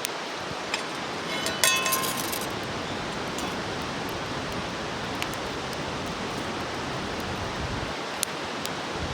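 Steady rushing outdoor noise, with a metal clink that rings briefly about a second and a half in and a few sharp ticks near the end.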